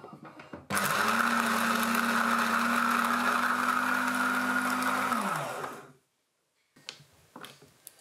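Built-in coffee grinder motor of a Philips automatic espresso machine running steadily for about four and a half seconds, then winding down with a falling pitch. It turns freely now that a jammed leftover bean has been cleared from the grinder.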